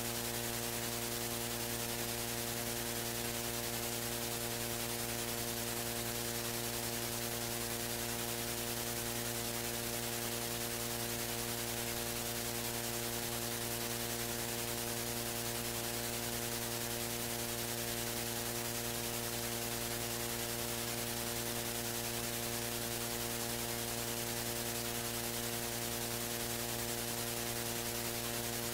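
Steady electrical mains hum and buzz over a constant hiss, with no other sound.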